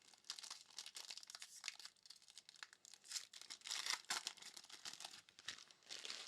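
Faint crinkling and rustling of a foil trading-card pack wrapper being torn open and cards handled, in irregular clusters that are busiest about halfway through.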